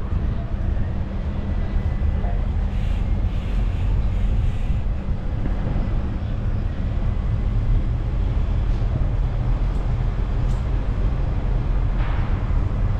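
Steady low rumble of a road tourist train (a tractor-pulled City Train) running through the streets, heard from on board.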